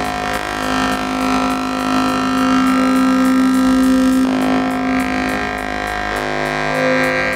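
Analog synthesizers playing layered, sustained drone tones through a delay, with the held notes shifting about four and six seconds in.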